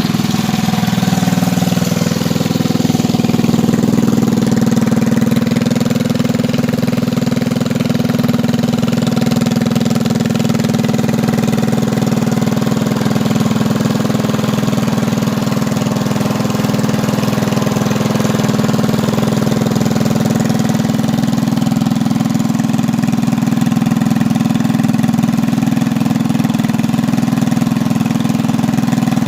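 Stage 1 Predator 212cc single-cylinder four-stroke engine on a mini bike running steadily, nice and loud.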